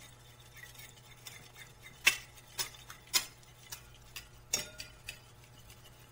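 Metal spoon clinking against the sides of a glass bowl while beating eggs, in sharp, irregular clicks about twice a second, the loudest about two seconds in.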